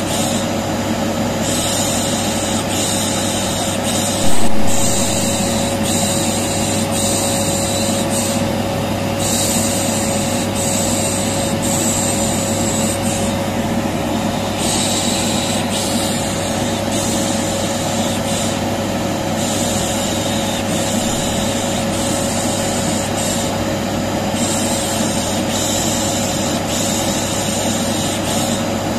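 Household vacuum cleaner running steadily, with a shushing hiss ('pış pış') laid over it that comes and goes every second or two; this is continuous white-noise-style sound for soothing a colicky baby. There is a brief loud bump about four seconds in.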